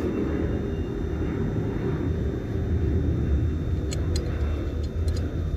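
Steady low rumble, with a few light metal clicks about four to five seconds in as nuts are fitted to the kettle lid's handle bolts.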